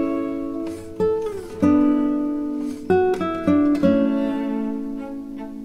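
Background music: an acoustic guitar plucking and strumming chords, each one ringing out and fading before the next.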